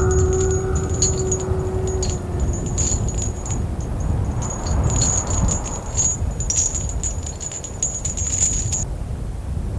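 Horror sound effect: a low rumble under high, irregular tinkling and jingling that stops about nine seconds in, with a held tone fading out in the first two seconds.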